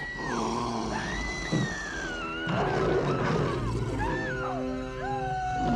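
Tense orchestral film score with a monster's growling roar over it.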